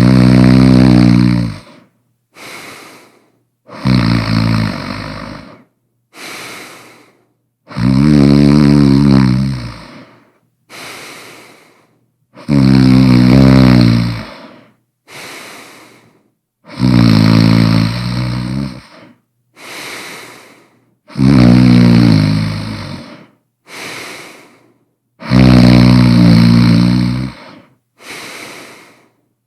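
A person snoring loudly in a steady rhythm: seven long, loud snores about four seconds apart, each followed by a shorter, much quieter breath.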